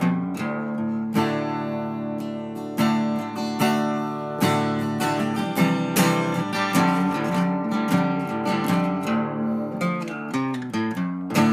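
Acoustic guitar music, with strummed and plucked notes.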